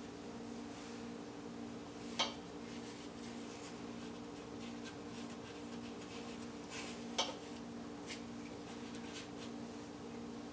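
Paintbrush scrubbing and dabbing thick paint on a canvas and palette: soft, scratchy brush strokes, with two sharp taps, one about two seconds in and one about seven seconds in. A steady low hum runs underneath.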